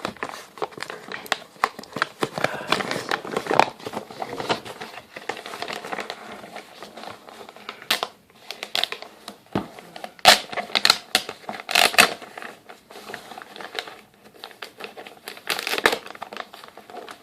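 Gift wrapping paper crinkling and rustling in the hands as a wrapped box is slowly unwrapped, with irregular sharp crackles.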